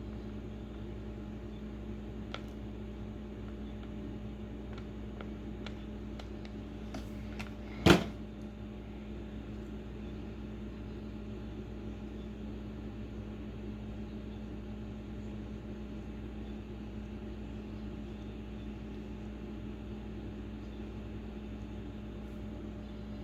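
Steady low electrical hum with a constant tone, with a few faint ticks of handling on the workbench and one sharp knock about eight seconds in.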